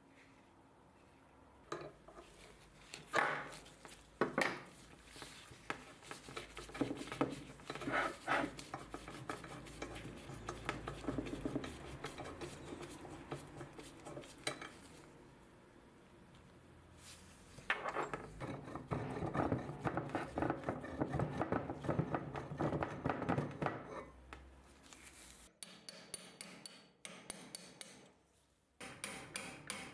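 Rusty metal parts of an antique can-sealing machine clinking and clattering as they are handled and taken apart, in irregular knocks and scrapes with a quieter lull around the middle. Near the end, a quick run of regular metal taps begins.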